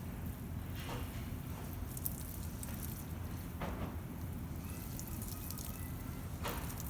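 Water from a shower splashing and dripping, with a few short splashes about a second in, near the middle and near the end, over a steady low rumble.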